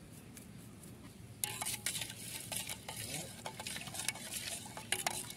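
Metal spoon stirring pani puri rasam in a stainless steel bowl, the liquid sloshing and the spoon clicking repeatedly against the bowl, starting about a second and a half in.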